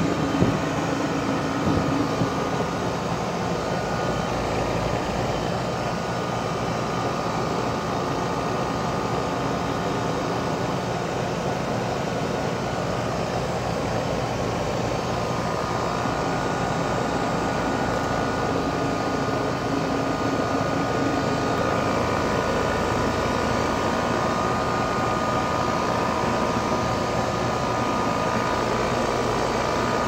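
2012 Rheem 4-ton heat pump's outdoor unit running steadily in cooling mode: the even rush of the condenser fan with a steady hum under it.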